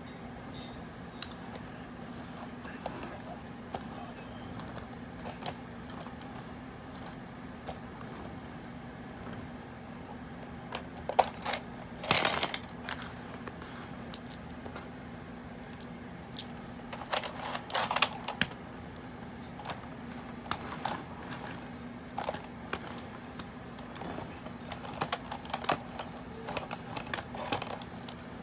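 Plastic clicks and knocks from a vintage G1 Transformers Rodimus Prime toy and its trailer being handled, over a steady hum. Two louder bursts of clatter come about eleven to twelve seconds in and again around eighteen seconds.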